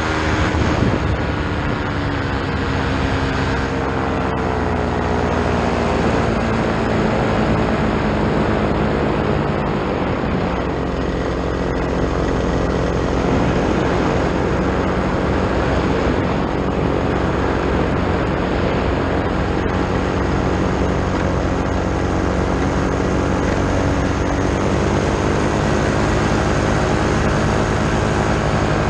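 Vittorazi Moster two-stroke paramotor engine driving its propeller in flight. The engine note drops over the first couple of seconds as the throttle eases, then holds steady.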